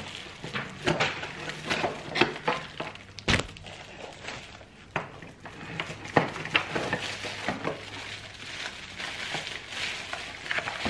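Cardboard and plastic packaging rustling, with hard plastic vacuum-cleaner parts knocking as a new vacuum is unpacked by hand. There is one sharp knock about three seconds in.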